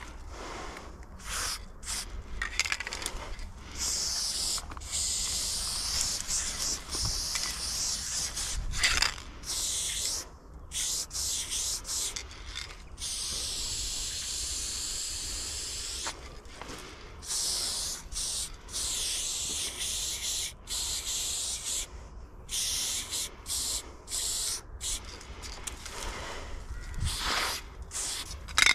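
Aerosol spray-paint can hissing in bursts as paint is sprayed onto a wall: short bursts at first, a long near-unbroken spray through the middle, then short bursts again.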